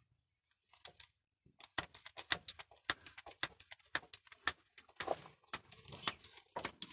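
Grease gun clicking as it is pumped and worked on a combine harvester's grease fittings: a run of quick, irregular light clicks and ticks starting a little under two seconds in.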